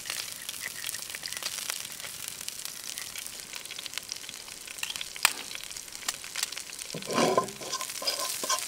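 Sliced onions sizzling in oil in a frying pan over a campfire: a steady hiss with scattered small crackles. About seven seconds in comes a louder burst of stirring and handling.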